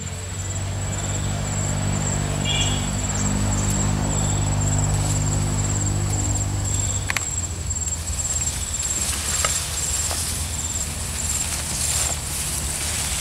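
A high-pitched insect trill pulsing in short, even beats, fading out near the end. Under it a low steady hum runs until about halfway and then stops, and a brief chirp sounds about two and a half seconds in.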